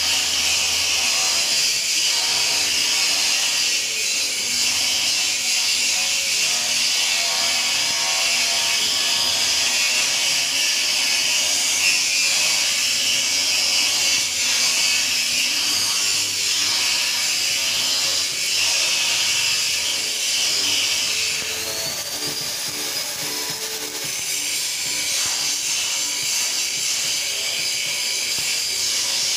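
Stick (shielded metal arc) welding with an E6013 rutile electrode: the arc makes a steady crackling hiss that eases for a couple of seconds about two-thirds of the way through. Music plays faintly underneath.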